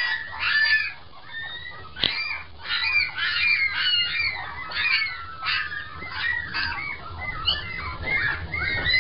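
A litter of young puppies squeaking all at once: many short, high-pitched cries overlapping without pause, loud throughout.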